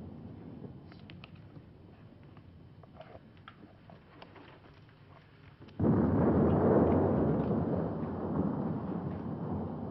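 A sudden loud explosion about six seconds in, dying away slowly over several seconds. Before it there is only a low hiss with faint scattered clicks.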